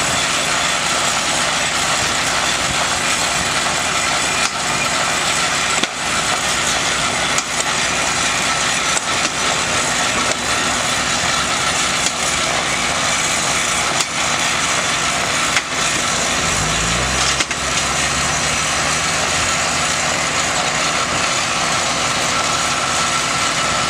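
Portable gasoline-powered rail grinder running steadily at high speed on the rail, with a truck engine idling underneath. A low engine note rises briefly about 17 seconds in.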